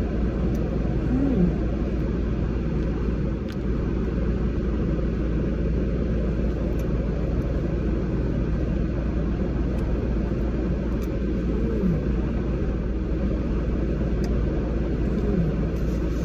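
Steady low rumble of a car idling, heard from inside the cabin.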